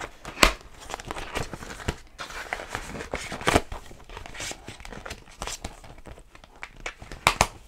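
Crinkling and rustling of a clear plastic envelope pocket in a disc-bound binder as it is handled and cash is slipped in, with a few sharp clicks: one about half a second in, one in the middle and two close together near the end.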